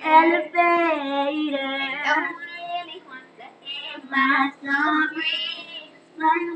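Young girls singing a song unaccompanied by speech, with long held notes that waver in pitch over the first two seconds, then shorter sung phrases.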